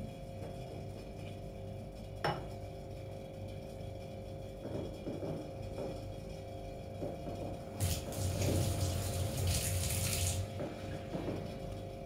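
Water boiling in a steel pot on a gas burner, bubbling on and off over a low steady hum. A single sharp click comes about two seconds in, and a louder hiss runs from about eight to ten seconds.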